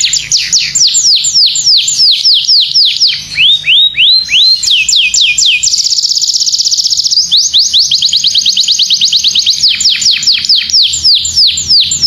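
Domestic canary singing a long, loud song of repeated phrases: fast runs of whistled notes sweeping down in pitch, about four a second. About three seconds in it switches to a few slower rising notes, then to a very rapid trill for about a second and a half, before returning to fast down-sweeping notes.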